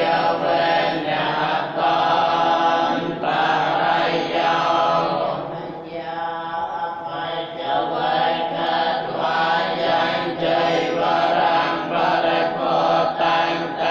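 A group of Buddhist monks chanting together, a continuous recitation in long phrases with brief breaks between them.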